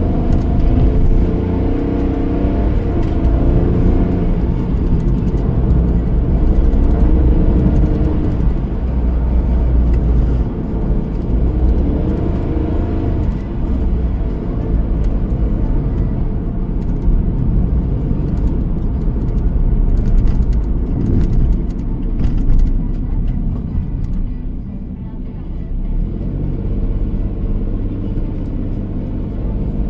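Car being driven on a road: a steady low rumble of engine and tyre noise, which eases for a couple of seconds about three-quarters of the way in.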